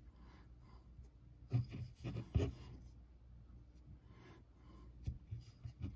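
Fingers pressing and smearing spackle into cracks on a small model building: soft, irregular rubbing and scraping, loudest in a cluster about two seconds in, with a few small clicks near the end.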